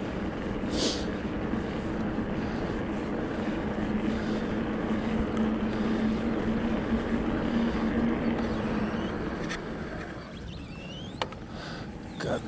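Riding noise from a Rockrider E-ST 900 electric mountain bike: a steady rush of wind and rolling noise, with a low steady hum from about three to nine seconds in. A few sharp clicks come near the end.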